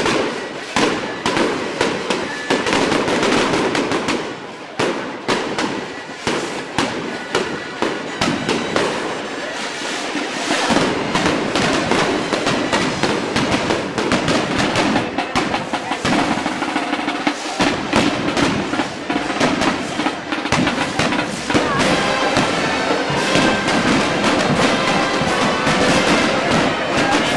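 A long run of rapid, sharp firecracker bangs with street music underneath. A reedy gaita (Navarrese shawm) melody comes in over the bangs during the last few seconds.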